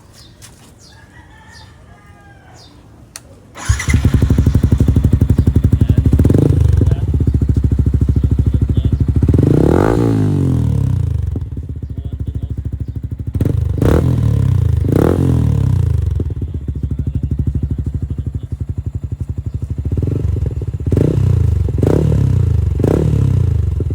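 Yamaha Sniper 155's single-cylinder engine through an aftermarket MVR1 exhaust pipe, starting about four seconds in and idling, revved in short blips with one longer rev that rises and falls near the middle.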